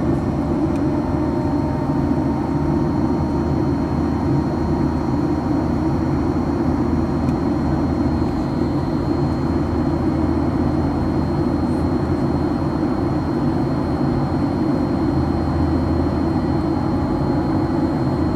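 Airliner cabin noise in flight: a steady, even drone of engines and rushing air, heaviest in the low range, with a faint steady high whine over it.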